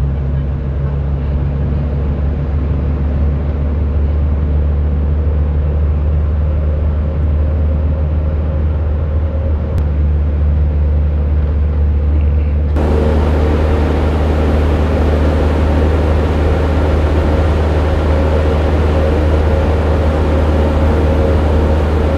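Bus engine droning with road and wind noise inside the cabin while cruising on a highway, a steady low hum throughout. A little past halfway the hiss suddenly turns brighter and fuller.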